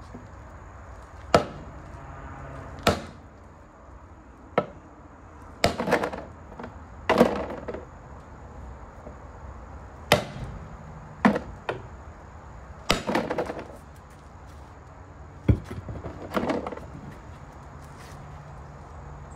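About a dozen sharp knocks and clanks, irregularly spaced one to two seconds apart, several with a short ring: metal tools striking or being worked against a semi truck's wheel hub.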